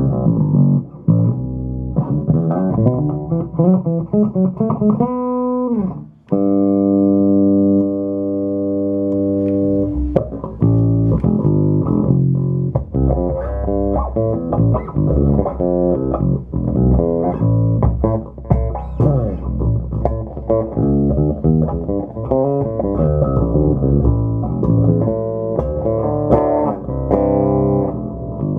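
Electric bass guitar played through a Phil Jones Bass Briefcase combo amplifier with quick plucked lines. About five seconds in comes a sliding note, then a long held note lasting about four seconds before the busy plucked playing starts again.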